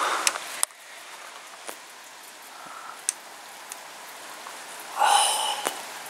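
Steady rain from a thunderstorm, with scattered sharp drip ticks. The rain noise is heavier for the first half-second, then drops suddenly to a softer hiss. About five seconds in comes a brief, louder sound.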